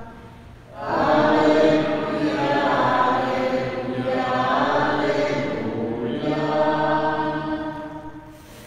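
Sung liturgical music at Mass: voices holding long notes in a choral, chant-like style. The singing comes in about a second in after a short lull.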